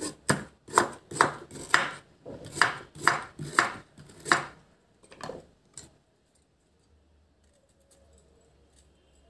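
Crinkle-cut knife chopping carrot into slices on a wooden cutting board: about ten sharp knocks of the blade on the board over six seconds, then the chopping stops.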